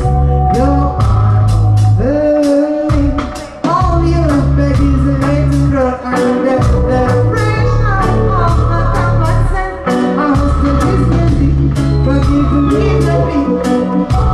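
Live reggae band playing: a female vocalist sings into a microphone over a heavy electric bass line, guitar and drums keeping a steady beat. The bass drops out briefly about three seconds in.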